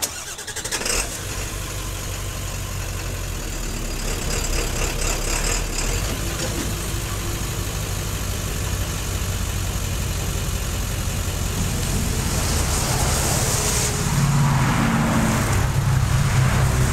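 Diesel locomotive engine of an approaching freight train, a steady low rumble that grows gradually louder as it nears.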